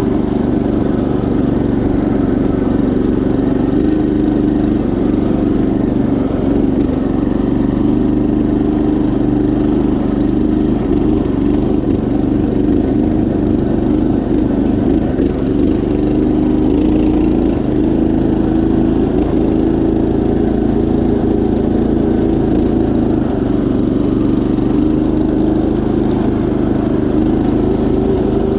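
Predator 212 single-cylinder four-stroke engine on a Craftsman GT5000 riding mower, running at a steady speed as the tractor drives along a dirt trail.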